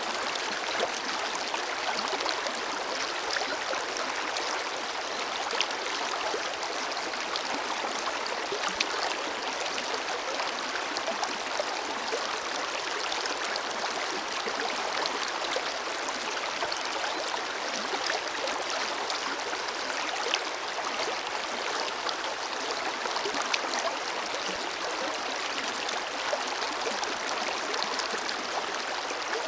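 Forest river flowing: a steady rush of moving water with small splashes and gurgles throughout.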